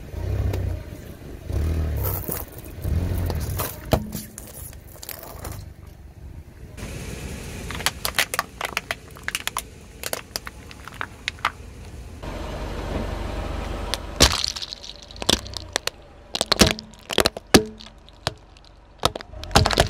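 A car tyre rolls slowly over objects and crushes them, across several short clips. It starts with low rumbling crunches, then many sharp cracks of hard plastic breaking. The cracking is densest in the last few seconds, as Rubik's cubes snap apart under the tyre.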